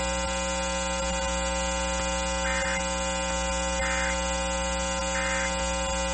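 Loud, steady electrical buzz with many overtones on an FM broadcast after an Emergency Alert System test message. Three faint, short warbling data bursts, the EAS end-of-message code, sound about 1.4 s apart from about two and a half seconds in, barely audible under the buzz.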